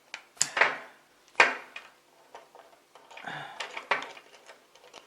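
Sharp knocks and clicks of hard printer parts being handled and fitted together, a few separate strikes in the first two seconds, then a stretch of rustling and handling about three seconds in.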